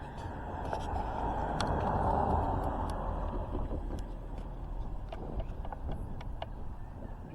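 A vehicle passing by: a rushing noise over a low rumble that swells to a peak about two seconds in and then slowly fades, with a few light clicks.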